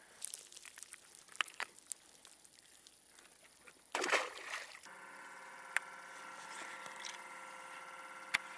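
Light handling clicks, then a splash about four seconds in as the released largemouth bass hits the water. Right after, the jonboat's bow-mounted electric trolling motor starts and runs with a steady whine.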